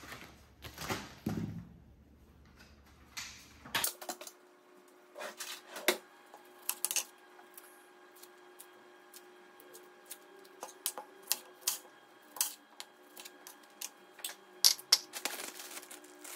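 Food-prep handling at a kitchen counter: garlic being peeled by hand and a plastic zip-top bag being handled. From about four seconds in there are scattered sharp clicks and short dry crackles, with a denser rustle near the end, over a faint steady hum.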